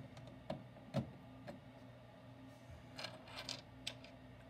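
Small plastic clicks and taps of LEGO pieces being handled and pressed together: three single clicks about half a second apart, then a quick cluster of clicks about three seconds in.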